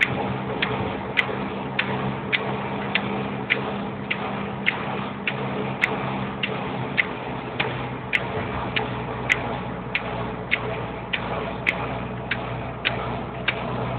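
Inside a moving car's cabin: a steady, even ticking about one and a half to two times a second, over the engine's low hum.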